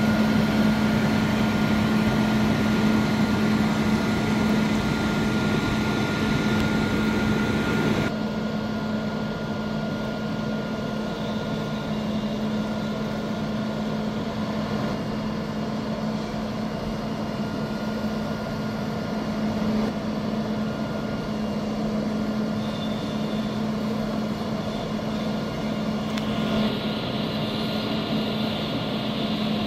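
A bucket truck's Cummins ISL9 inline-six diesel running steadily, with a constant hum. The sound turns suddenly duller about eight seconds in and brightens again near the end.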